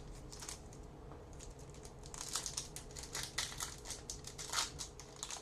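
A 2007 Score Select football card pack being opened and handled: wrapper crinkling with a quick run of crisp rustles and clicks, starting about a second and a half in.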